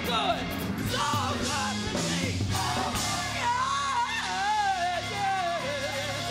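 Gospel choir song with band accompaniment. From about halfway the lead voice runs a melismatic line and ends on a long held note with vibrato.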